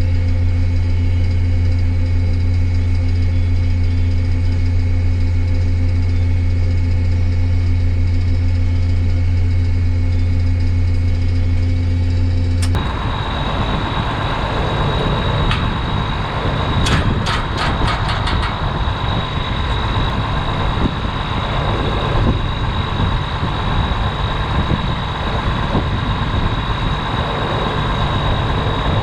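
Combine harvester running steadily while its unloading auger empties soybeans: a steady low drone. About 13 seconds in, the sound changes abruptly to a rougher, noisier machine sound with a steady high whine and a brief run of clicks.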